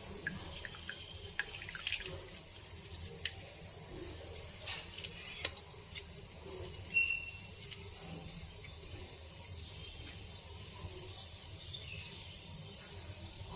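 Light kitchen handling with liquid: small clicks and drips in the first half, and a brief ringing clink of a utensil against a vessel about seven seconds in, over a faint steady hiss.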